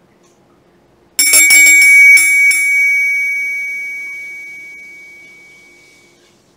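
Small metal meditation bell rung several times in quick succession about a second in, then one high ringing tone that fades away slowly over about four seconds. It marks the start of the meditation.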